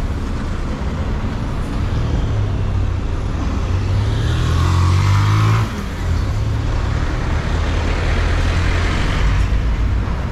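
Road traffic on a city street: car and heavier vehicle engines running past close by. One engine is loudest from about four seconds in and drops away suddenly near the middle, followed by more passing-tyre hiss.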